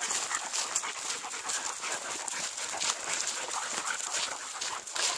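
Siberian huskies panting while they walk. Footsteps and paws crunch along the trail in a quick, irregular run.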